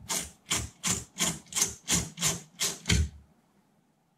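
A screwdriver turning out small screws from a car stereo's tape-deck chassis: about nine short, even scraping strokes, roughly three a second, that stop about three seconds in.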